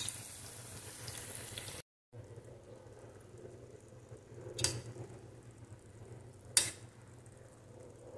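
Tomatoes and garlic sizzling softly in oil in a stainless steel pan. After a brief cut the sizzle is fainter, and a steel spoon clinks against the pan twice as it turns the tomatoes.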